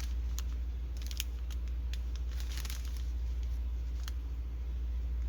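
Scattered crinkles and sharp clicks of a diamond painting kit and its plastic packaging being handled, over a steady low electrical hum.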